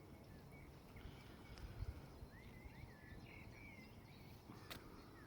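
Near silence: a faint low rumble of outdoor background, with a few quick, soft bird chirps about halfway through and a light click near the end.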